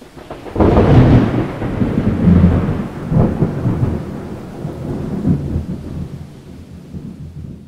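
A thunderclap about half a second in, then low rolling thunder that swells a few more times and slowly fades.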